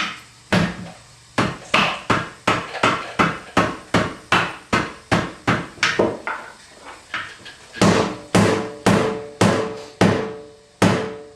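Rapid, repeated hammer blows, about two to three a second with a short lull midway, driving a flat steel bar to work a 22.5-inch truck tire's bead over the lip of the wheel. The later blows ring with a metallic tone.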